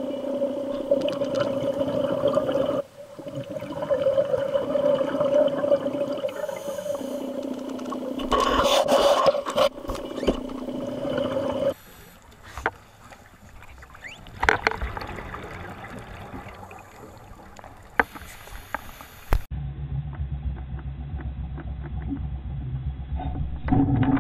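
Underwater sound picked up by a GoPro in its housing during a dive: a steady low hum with scattered clicks and bubbling, changing abruptly twice where the footage is cut.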